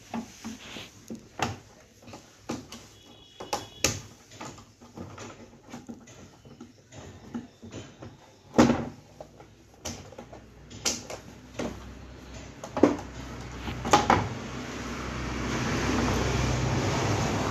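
Clicks and knocks of plastic and metal parts being handled as an LED TV is taken apart and its LCD panel lifted out of the back housing, with a handful of louder knocks in the second half and a rustling swell near the end.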